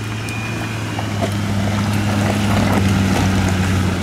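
Land Rover Discovery 2 engine held at steady high revs under full throttle in first gear, labouring to climb a muddy rut, with a few knocks from the wheels and underside. The onlookers call it gutless and think something is wrong with the engine.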